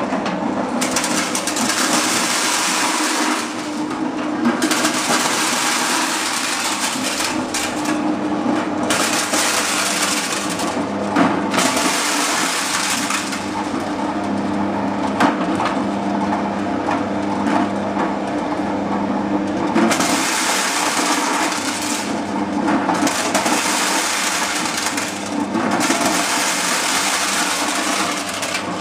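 Mini corn sheller running with a steady motor hum, and repeated stretches of rattling and crunching a few seconds long as cobs go through and the kernels are stripped off.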